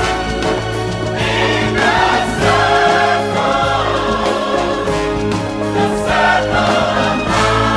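A song with a choir singing over instrumental backing, running steadily throughout.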